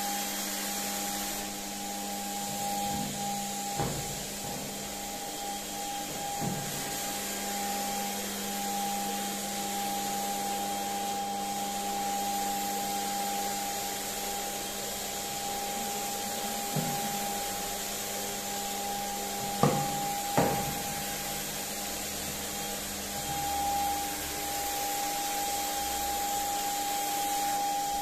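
Electric HVLP turbine paint sprayer running steadily while spraying polyurethane varnish: a constant whine over an airy hiss. A few short knocks, the loudest two close together about two-thirds of the way through.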